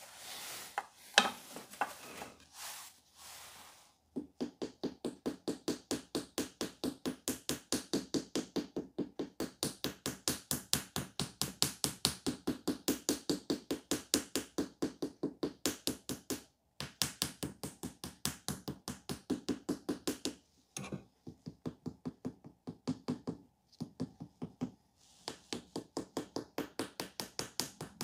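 A wooden modelling stick tapping against the clay head of a sculpture. The taps come in a quick, even run of about five a second, starting about four seconds in and stopping briefly a few times.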